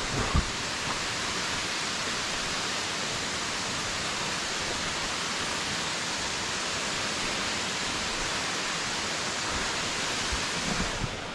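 A tall waterfall rushing in a steady, unbroken wash of falling water. There is a brief low thump near the start.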